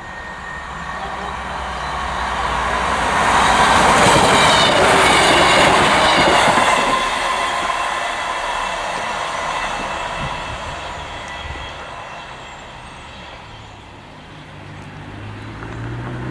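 Passenger train passing close by at speed: the rumble and wheel-on-rail noise build to a peak about four seconds in, then fade as it runs away down the line. Near the end a low hum rises in pitch.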